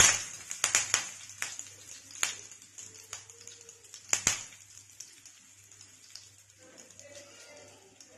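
Curry leaves spluttering in hot coconut oil on a tawa: a burst of sizzling as they hit the oil, then sharp pops and crackles at irregular intervals that thin out and grow fainter after about four seconds.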